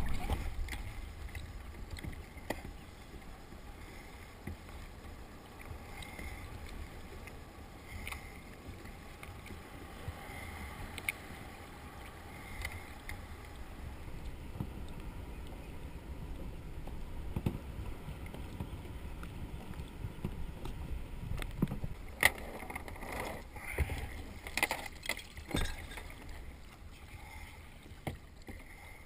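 Kayak paddling on the water: paddle strokes splashing among a steady low rumble of water and wind on the microphone, with scattered sharp knocks and a quick run of strokes late on. The sound is muffled by a waterproof camera housing.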